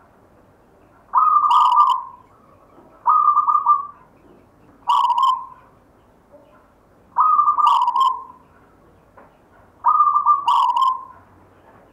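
Zebra dove (perkutut) cooing in its rhythmic song, five phrases of quick soft notes each about a second long with pauses of a second or two between them. Most phrases carry a brief higher note.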